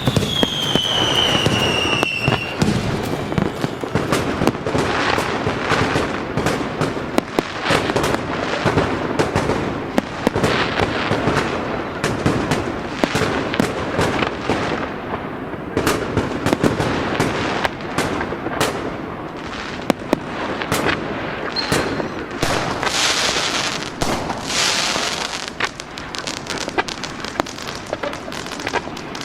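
Fireworks display: a dense run of bangs and crackling cracks, opening with a falling whistle over the first couple of seconds.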